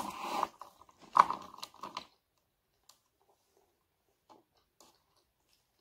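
Crisp fried dried fish crunching, a dense crackle over the first two seconds, loudest about a second in, then a few faint scattered clicks.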